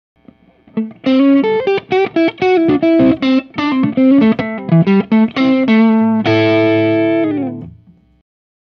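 Fender Telecaster played through a JHS Angry Charlie distortion pedal into a Marshall JCM 800 amp. It plays a quick lick of single distorted notes, then a chord near the end that rings out and fades away.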